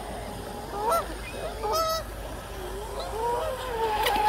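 Canada geese honking: a call about a second in, another just before two seconds, then a run of honks near the end.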